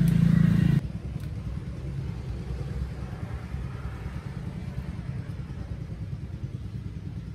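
Low steady rumble of a motor. It is louder and more pitched for the first second, then drops off suddenly to a softer, even rumble.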